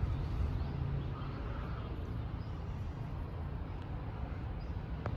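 Steady low rumble of outdoor background noise, with no distinct sounds standing out.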